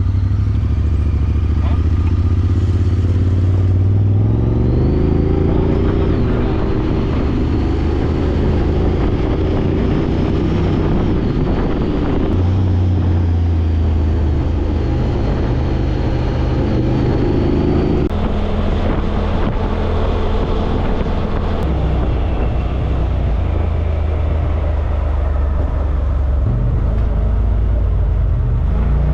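Side-by-side UTV engine running while driving, its pitch rising and falling as the throttle is worked.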